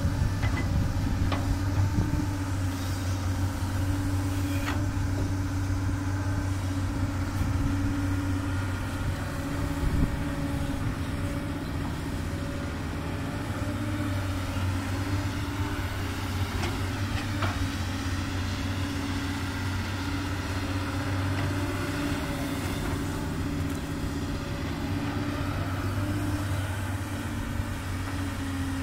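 Doosan DX200 excavator's diesel engine running steadily, with a few short knocks, the loudest about ten seconds in.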